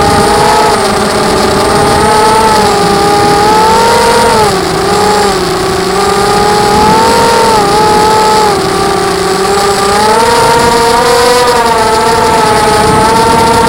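ZMR 250 FPV quadcopter's brushless motors and propellers whining, the pitch rising and falling smoothly as the throttle changes.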